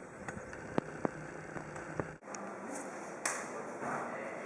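A few light, sharp taps: two about a second in and another near the middle, over low background noise.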